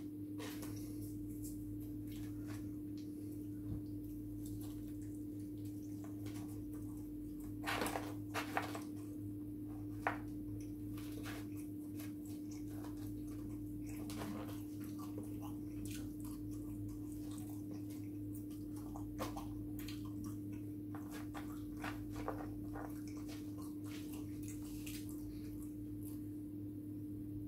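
Eating sounds: a fork tapping and scraping in foam takeaway boxes, and chewing. Light clicks are scattered throughout, with a few louder ones about 8 and 10 seconds in, over a steady low hum.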